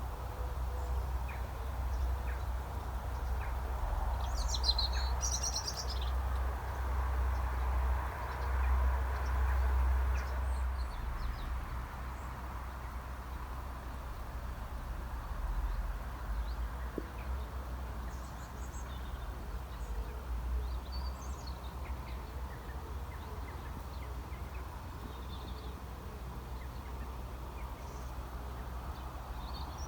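Birds chirping in short bits, loudest about five seconds in and again near the end, over a steady low rumble.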